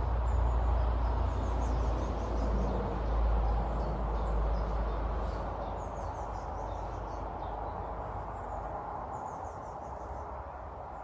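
Small garden birds chirping in short, high twittering runs, over a low rumble that fades away by about the middle.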